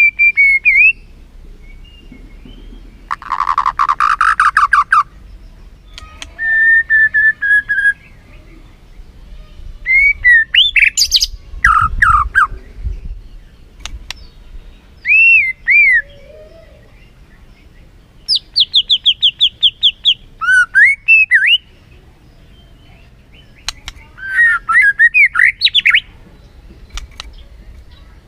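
White-rumped shama (murai batu) singing loud, varied phrases with pauses between: clear whistled slurs, a harsh buzzy note about three seconds in, and a fast run of about a dozen repeated notes past the middle.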